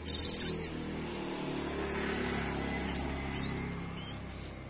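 Female white-eye (pleci) calling: a loud, rapid high trill at the start, then three short, high, sweeping call notes about three to four seconds in. This is the female's call used as a lure to rouse male white-eyes to sing. A low steady hum runs underneath.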